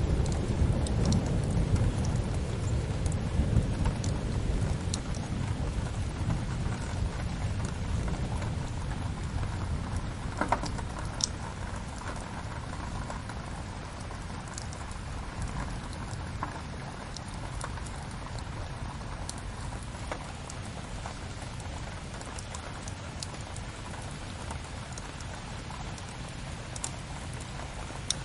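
Steady rain with a deep rumble of thunder in the first several seconds that slowly dies away. Scattered sharp crackles from a fireplace fire sound over the rain.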